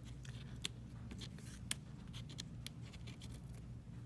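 Small, sharp clicks and light scraping from fingertips and tools handling the parts of an opened iPhone X, a few distinct clicks among softer rubbing, over a steady low hum.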